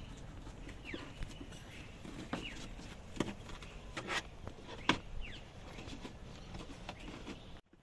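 Dash-cam power cable being pressed and tucked by hand into the gap between the car's headliner and the roof trim: soft rustling with scattered clicks and taps, the sharpest about three, four and five seconds in.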